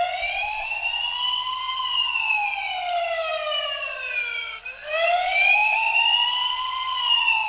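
Toy fire truck's electronic siren playing through its small speaker: a slow wailing tone that rises and falls in pitch, starting over about four and a half seconds in.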